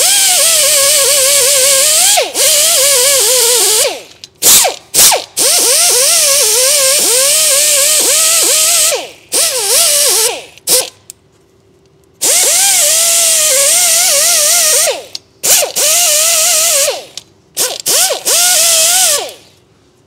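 Small pneumatic grinder with an abrasive disc polishing rust off a wheel hub between the studs: a loud air hiss with a motor whine whose pitch wavers and dips as the disc is pressed on. It runs in stretches of several seconds with short trigger blips between, and pauses for about a second near the middle.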